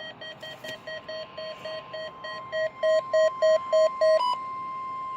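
Midland WR100 weather radio sounding its alert for a required weekly test: short beeps about three a second, growing louder, then a steady high tone from about four seconds in.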